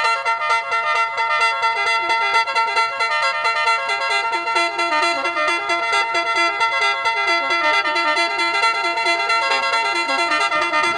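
Instrumental background music: many sustained pitched tones with a shifting melody underneath.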